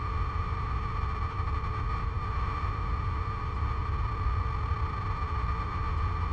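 Electronic drone: a steady low rumble with a constant high ringing tone held above it.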